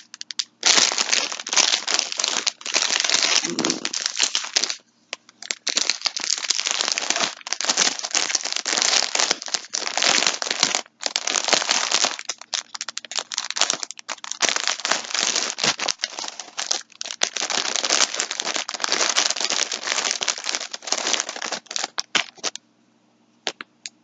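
Plastic packaging of a yarn pack crinkling and rustling as it is handled and opened, in long stretches broken by short pauses, stopping a second or two before the end.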